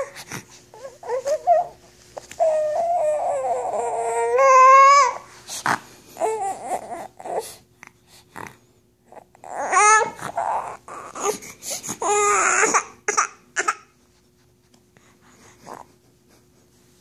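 High-pitched whining, cry-like vocal noises in bursts, with short pauses between them. The longest burst is a wail a few seconds in that rises in pitch at its end. The noises die away to near quiet for the last few seconds.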